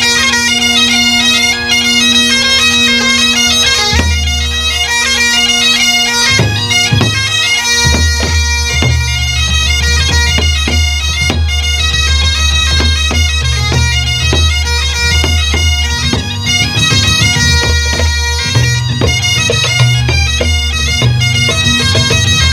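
Highland bagpipes playing a tune over their steady drones. A drum part joins about four seconds in, beating under the pipes.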